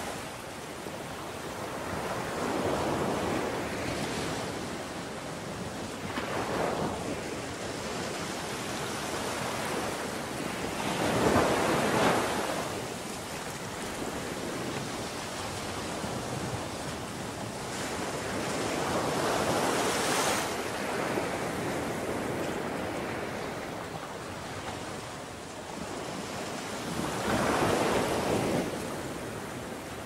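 Ocean surf washing onto a beach, waves swelling and falling away every few seconds, the loudest about eleven seconds in.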